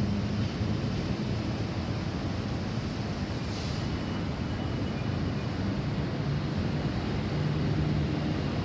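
Airbus A320-216 climbing out after takeoff, its CFM56 turbofan engines making a steady low rumble.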